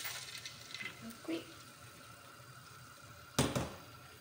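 Thick tomato sauce pouring out of a glass bowl into a frying pan with oil, a soft wet splattering that fades within the first second. A little after three seconds in comes one sharp knock.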